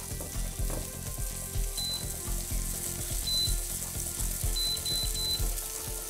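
An egg frying and sizzling on a teppanyaki griddle plate over an induction hob, with a spatula pushing and scraping it across the plate in repeated strokes. Five short high beeps sound from the induction hob's touch controls as the heat is turned down, the last three in quick succession.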